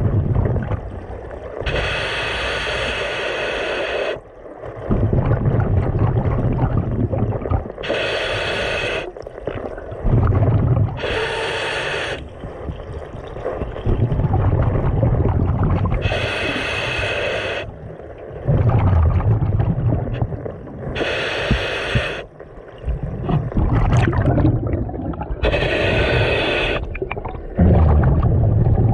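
Scuba diver breathing through a regulator underwater: six hissing inhales a few seconds apart, each followed by a low rumble of exhaled bubbles.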